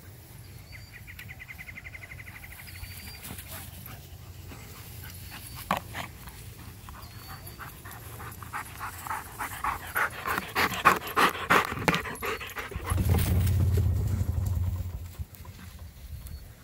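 Dog panting hard in quick rhythmic breaths, growing louder as it comes close, running for several seconds and stopping a little after the middle. Then a low steady rumble for about two seconds.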